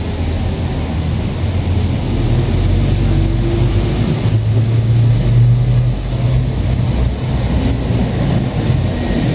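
Street traffic: cars passing on the road beside the pavement, a steady low engine rumble that swells in the middle.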